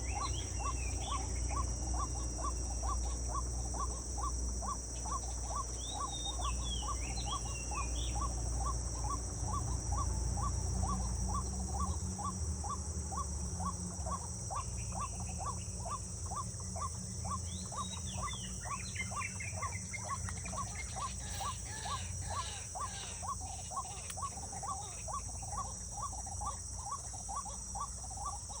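Outdoor natural ambience: birds giving short, falling whistled calls a few times over a steady high-pitched insect drone and a regular ticking call about two to three times a second, with a low rumble that fades about halfway through.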